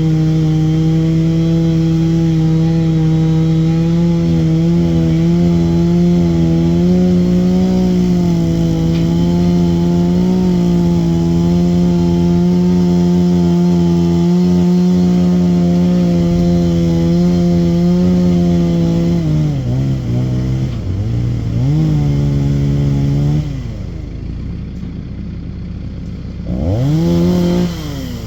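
Chainsaw running steadily at full throttle. Its pitch sags and recovers a couple of times, then drops to idle about 23 seconds in, with one quick rev near the end.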